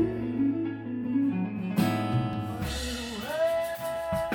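Music led by guitar: plucked and strummed guitar notes, fuller from about two seconds in, with one note bending down and up and then held near the end.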